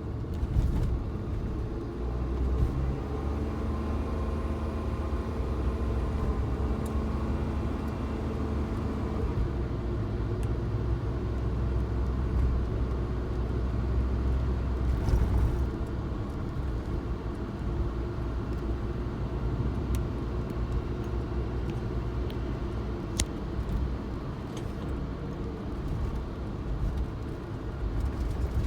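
Suzuki Jimny being driven: a steady engine and road rumble with a few faint clicks.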